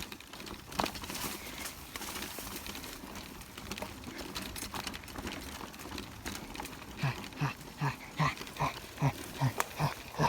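Rustling and crackling with scattered clicks, then from about seven seconds in rhythmic hoarse breaths, about two a second, growing louder: heavy breathing from exertion.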